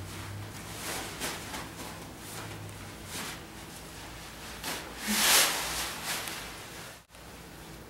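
Fabric of a workout sandbag rustling and swishing as it is grabbed off the floor and heaved up onto the shoulders, with the loudest swish about five seconds in as it lands.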